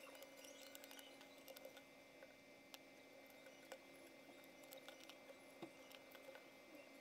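Faint, scattered clicks and light taps of cardboard jigsaw puzzle pieces being picked up and set down on a wooden table, over a steady low electrical hum.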